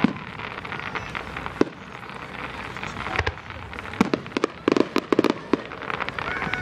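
Fireworks and firecrackers going off: scattered sharp bangs, then a quick run of crackling pops about four to five seconds in.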